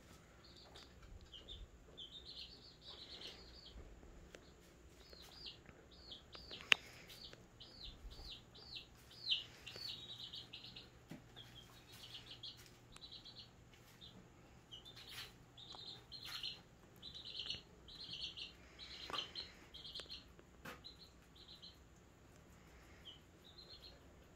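Small birds chirping in quick runs of short, high, falling peeps, with a sharp click about a quarter of the way in and another a few seconds later.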